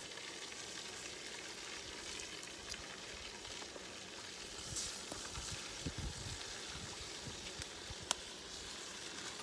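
Steak marinated in olive oil sizzling steadily as it cooks over a campfire, with scattered small pops and one sharper pop about eight seconds in.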